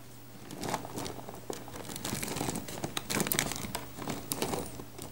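Small plastic Gormiti figures clicking and rustling against each other and the cardboard as hands rummage through a box full of them: a steady run of small clicks and rustles.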